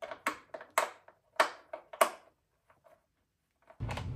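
Hard plastic bodywork clicking and knocking in a quick irregular series as it is bent and pressed into place on a dirt bike. A steady hum starts abruptly near the end.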